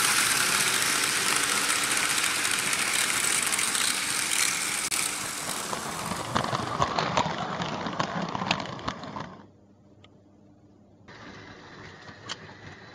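Vintage Märklin H0 model trains running on metal M-track: a loud, steady whirring and rattling of motors and wheels passing close, dotted with sharp clicks. About two-thirds of the way through it drops suddenly to much quieter for a moment, then goes on as a fainter running noise with occasional clicks.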